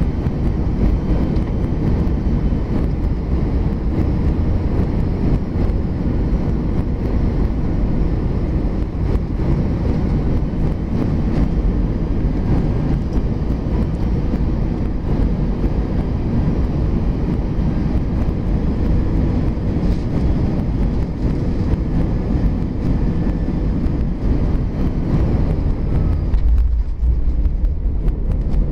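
Steady roar of an Airbus A320's engines and airflow heard inside the cabin on final approach. Near the end the hiss falls away and a deeper rumble takes over as the aircraft touches down on the runway.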